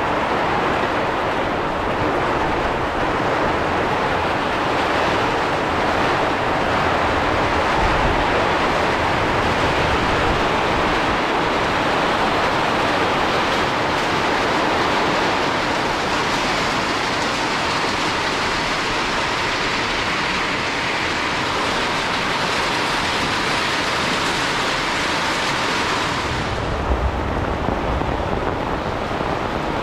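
Heavy rain falling in wind, a steady dense hiss. About 26 seconds in the hiss turns duller and low rumbling comes in.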